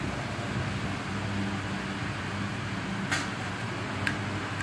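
Steady low hum and hiss of background machine noise, with two short sharp clicks about a second apart in the second half.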